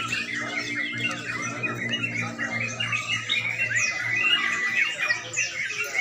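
Many caged sooty-headed bulbuls (crucukan) singing at once: a dense, continuous mix of overlapping chirps and rapid trilled song, with one long held whistle near the end.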